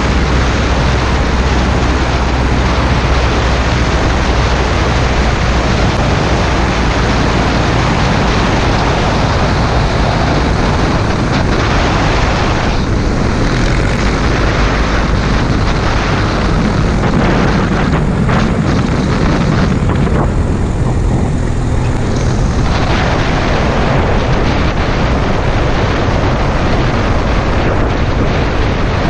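Steady rush of wind on an outside-mounted camera, with the low drone of an amphibious Cessna 172's engine and propeller underneath, during the final approach and landing on a paved runway.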